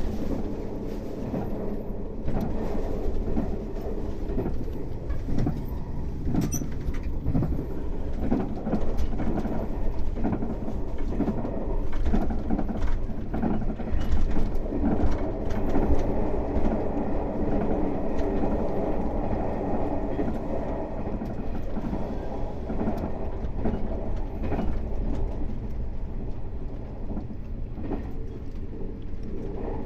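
381 series electric train running on the line, heard from inside the leading car: a steady rumble of wheels and running gear with scattered clicks as the wheels cross rail joints.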